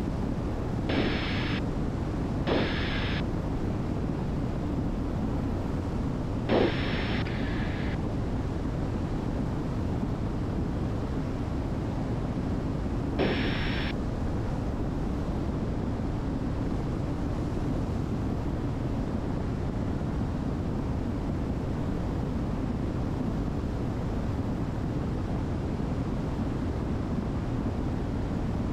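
Steady cabin drone of a Diamond DA62 twin in cruise, from its two engines, propellers and airflow. Four short electronic blips come in the first half, each a click followed by a brief hiss with a high tone.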